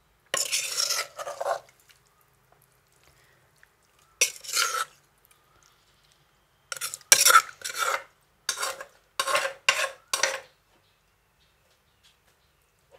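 A spoon scooping and scraping spicy bamboo-shoot salad against a dish to serve it, in about six short scrapes with quiet gaps between them.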